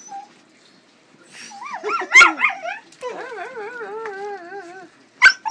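Pug whining: a quick run of rising-and-falling yelps about one and a half seconds in, then one long wavering whine that slowly falls for nearly two seconds. A sharp click comes near the end.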